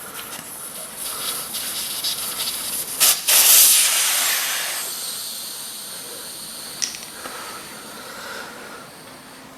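Air hissing out of a dirt bike's front inner tube as it is let down: a loud rush starts about three seconds in and fades away slowly over the next few seconds, with a few sharp clicks around it.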